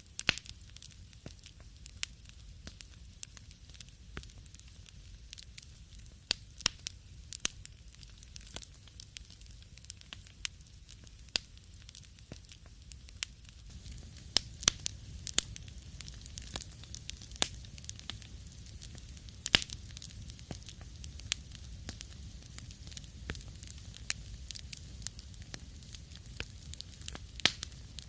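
Wood fire crackling in a fireplace: irregular sharp pops and snaps over a soft hiss and low rumble, the pops coming thicker from about halfway through.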